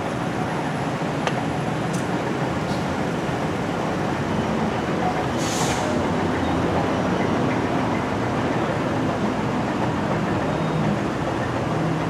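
Steady rumble of street traffic and a vehicle engine running close by, with a brief hiss about five and a half seconds in.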